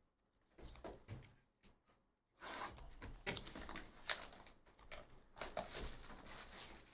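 Faint rustling, sliding and small clicks of trading cards and their packaging being handled. It starts about two and a half seconds in, after a near-silent start.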